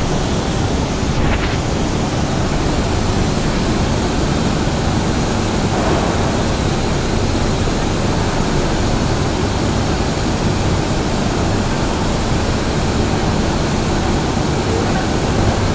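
Steady, loud industrial roar of steel plant machinery at a billet continuous caster: an unbroken noise with a low hum underneath.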